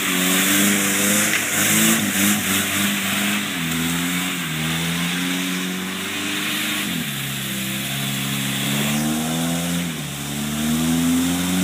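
Jeep Wrangler YJ's engine revving up and down as its tyres churn through deep swamp mud, the pitch dropping about seven seconds in and climbing again near the end.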